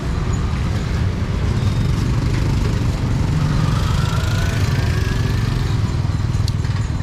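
Steady low engine rumble of street traffic, with one engine rising in pitch about halfway through.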